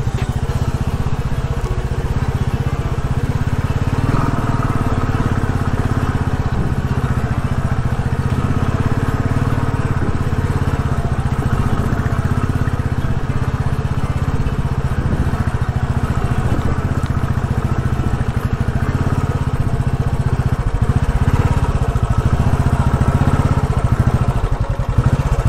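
Royal Enfield Classic motorcycle's single-cylinder engine running steadily under way with a fast, even thump, close to the microphone.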